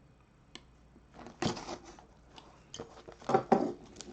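Trading cards and a cardboard card box being handled on a table: a sharp click about half a second in, then a few short rustles and scrapes.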